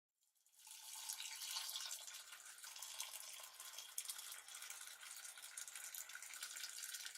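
Sound effect of hot water being poured into a ceramic mug: a steady splashing pour that fades in about half a second in and keeps going.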